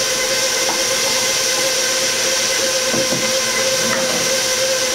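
Electric stand mixer running steadily on low speed (setting 2), mixing flour with yeast mixture into dough: a steady motor whine over a hiss, with a few faint ticks.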